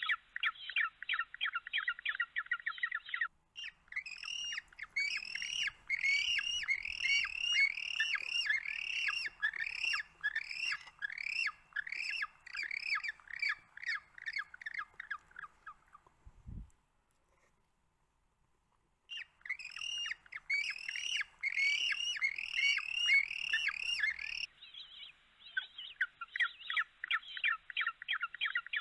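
Penguin calls: a fast chattering run of squawks, then a long series of rising squawks, about two or three a second, that ends with a soft thump. After a pause of a couple of seconds, the rising squawks start again before the fast chattering returns near the end.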